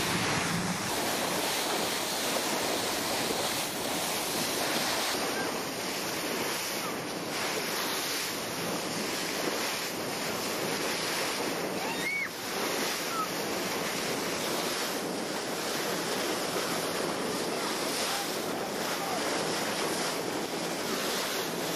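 Steady rush of wind on the microphone mixed with sea water churning alongside a boat under way.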